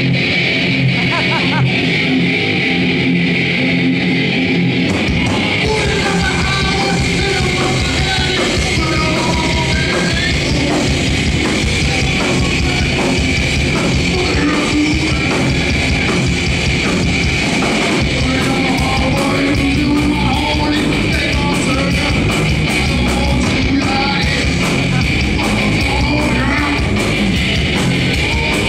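Live heavy metal band playing loud, with distorted electric guitar, bass and drums; the low end fills out about five seconds in as the full band comes in, and the drumming grows busier in the second half.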